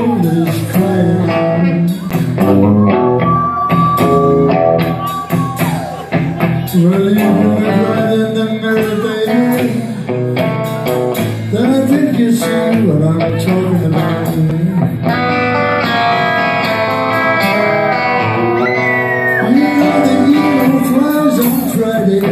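Live rockabilly band playing: electric guitar, electric bass and drums, with a lead vocal sung over them.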